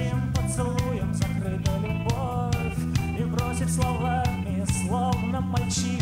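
Live rock band playing an instrumental passage, with electric guitar, bass guitar and keyboards over drums with regular cymbal hits.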